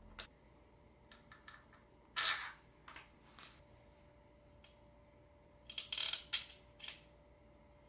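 Steel case bolts and washers clinking and clicking against an aluminium Subaru EJ22T engine crankcase as they are handled and set into their holes, in short bursts: a few light ticks, a louder clink about two seconds in, and a cluster of clinks around six seconds in.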